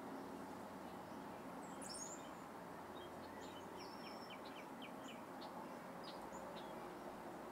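Small songbirds chirping in short, high notes, a couple about two seconds in and then a quick run of chirps, over a steady low background hum of outdoor ambience.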